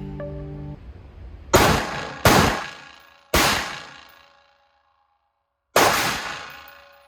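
Four loud sharp shots at uneven intervals, each followed by a ringing decay that fades over about a second. They are most likely an AR-15 rifle being fired.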